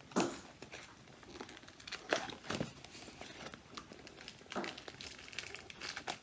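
Packaging crinkling and rustling by hand as a mailed package is opened at the side, in irregular bursts of crackles.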